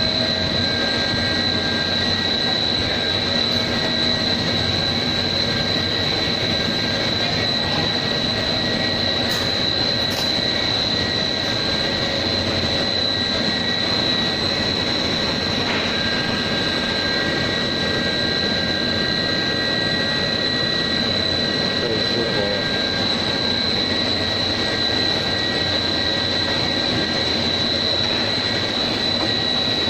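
Dog-chew snack production line machinery running: a steady, even mechanical drone with a constant high-pitched whine over it.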